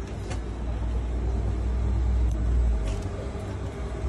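A deep low rumble that builds, is loudest two to three seconds in, then dies away.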